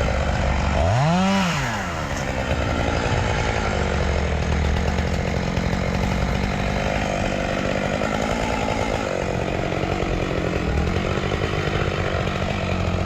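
Two-stroke chainsaw clearing small sprouts: it revs up and straight back down about a second in, then runs on steadily with small swells in speed.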